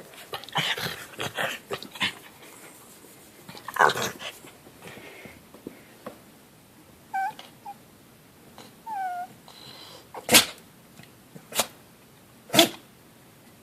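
Elderly miniature dachshund making grumbly vocal noises, wanting more belly rubs: rough bursts in the first few seconds, two short falling whines around the middle, then a few short sharp sounds near the end.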